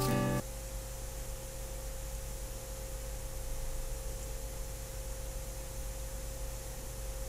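A steady low hum with a thin steady tone above it and faint hiss; a held musical chord cuts off abruptly about half a second in.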